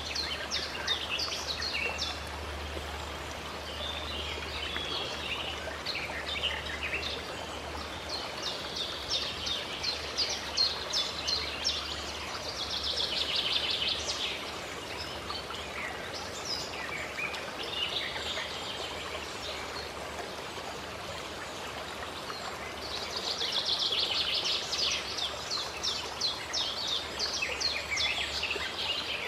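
Birds singing and chirping over a steadily running stream. Dense runs of rapid trilling notes come twice, around the middle and again near the end.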